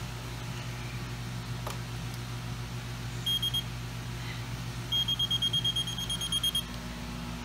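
Magneto timing light (buzz box) beeping: one short beep about three seconds in, then a run of rapid beeps, about six a second, for under two seconds. The tone follows the magneto's breaker points as the magnetos are timed to 25 degrees before top dead center.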